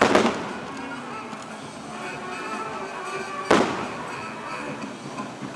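Fireworks shells bursting: two loud bangs, one right at the start and one about three and a half seconds in, each trailing off in a rumbling echo. Show music plays throughout.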